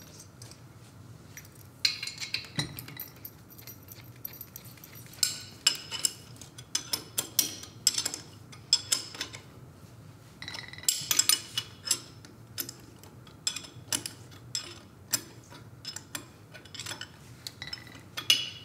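M12 steel bolts and washers clinking against the metal mounting flange as they are fitted by hand to fasten an electric actuator to a stainless ball valve: a run of short, sharp, irregular metallic clinks starting about two seconds in.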